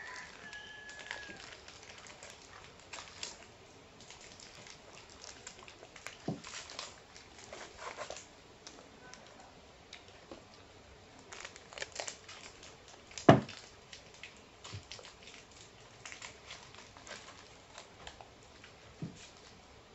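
Plastic snack-bar wrappers crinkling and crackling as they are handled and cut open with scissors, in scattered short clicks, with one sharper, louder click about 13 seconds in.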